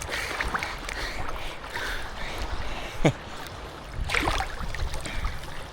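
Small waves washing and sloshing against the shore in a steady wash. About three seconds in there is a brief sharp sound that falls quickly in pitch.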